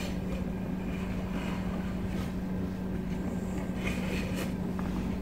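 A steady low hum runs throughout, with a few faint scrapes as a knife is drawn around the rim of a steel plate, cutting a circle out of thinly rolled layered dough.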